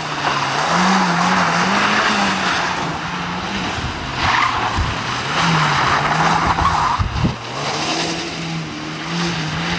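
Lada 2107's 1.5-litre four-cylinder engine revving up and down as the car is driven hard through a rally test, with its tyres skidding and scrabbling on the loose surface in repeated bursts.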